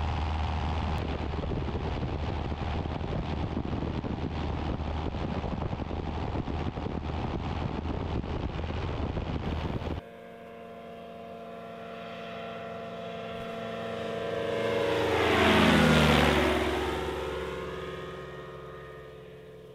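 Two-stroke engine of an Avid light aircraft in flight, heard first from on board as a steady drone with wind noise. About ten seconds in it is heard from the ground as the plane makes a low pass: it grows louder, its pitch drops as it goes by, and it fades away.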